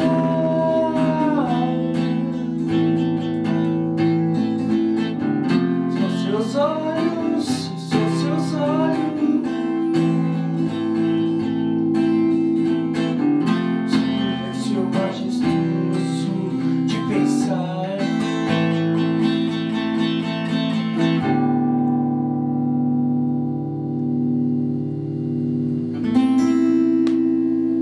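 Acoustic guitar strummed in a steady rhythm, with a sung note held at the start. About three-quarters through, the strumming stops and a chord rings out, then one more strum near the end rings on.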